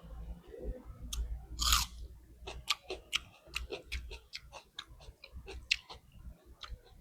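Close-miked chewing of rice, dal and pork: a steady run of short clicks and mouth smacks, with one louder, longer smacking sound about a second and a half in.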